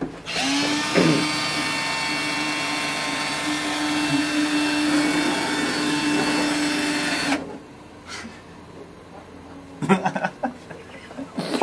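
Cordless drill motor running steadily at one pitch for about seven seconds, then stopping abruptly.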